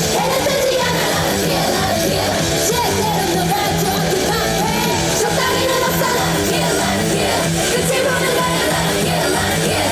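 Live rock-pop band music with a steady beat and a vocalist singing, loud and dense as at a concert.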